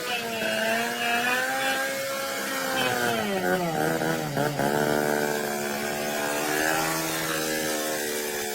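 BMW motorcycle engine running, its pitch dipping and wavering briefly about halfway through, then holding steady again.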